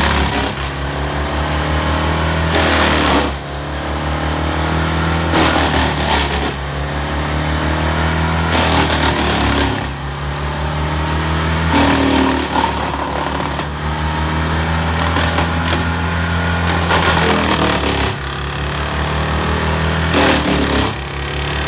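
Morbark Model 14 Blizzard drum chipper running at speed on its Perkins diesel, with loud crunching bursts every two to three seconds as wood is fed through the drum.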